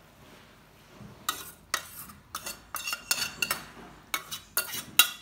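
Metal spoon scraping and knocking against the inside of a stainless steel pot as leek and mince filling is scraped out. The rapid run of about ten clinks starts about a second in.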